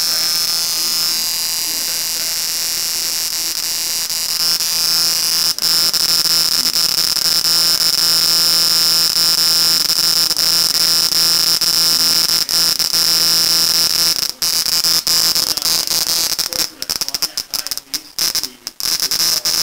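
Spark from an ignition coil marked as bad, driven by a coil tester across a half-inch gap: a steady, high-pitched electric buzz of rapid sparks. About five seconds in it gets louder, and in the last few seconds it breaks up, cutting out and back in repeatedly.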